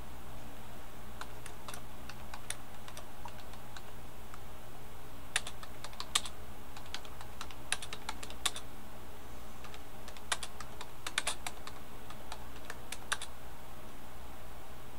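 Irregular keystrokes and clicks on a computer keyboard, heaviest in the middle of the stretch, over a steady low electrical hum.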